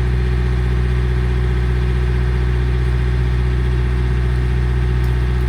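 Engine of the machine used to drag the logs, running steadily at an even speed without revving.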